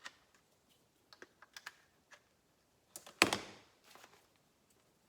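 Handling noise from a multimeter and its test leads: a few light clicks about a second in, then one sharper knock a little past three seconds.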